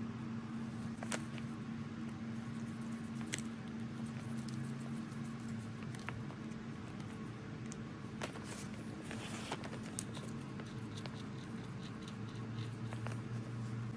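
Scattered small metal clicks and taps from cast-iron lathe carriage parts and a screwdriver being handled and fitted together, with a short scraping rustle about nine seconds in, over a steady low hum.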